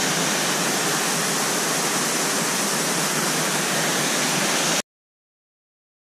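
Small mountain waterfall pouring down a rock face onto the rocks below: a steady rush of falling water that cuts off suddenly near the end.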